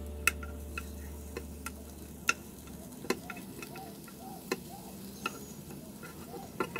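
Wooden spatula tapping and scraping on a non-stick frying pan as egg-filled vegetable rings are flipped over: a series of sharp, separate clicks over faint frying.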